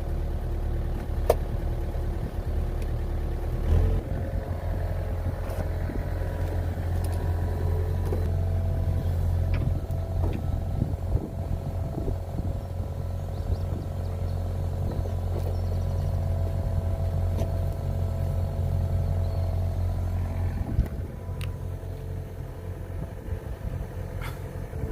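Hitachi EX60 excavator's diesel engine running steadily. It picks up in level about four seconds in and eases back near the end, with a few scattered metallic clanks.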